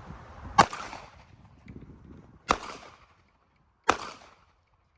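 Three shots from a 9mm handgun, spaced about one and a half to two seconds apart, each trailing off in a short echo.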